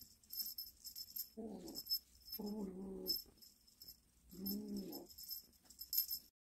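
A cat gives three low, drawn-out calls about a second apart, over the light jingling of a fishing-rod cat toy being swung.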